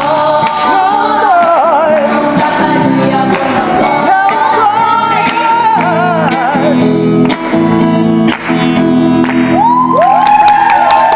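A woman singing a song with heavy vibrato over guitar accompaniment.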